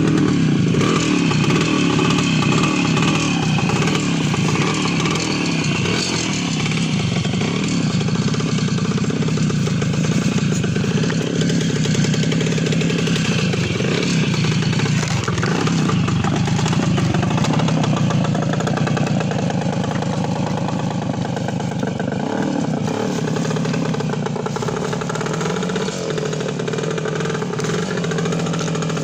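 Voskhod 3M motorcycle's single-cylinder two-stroke engine running, its speed rising and falling.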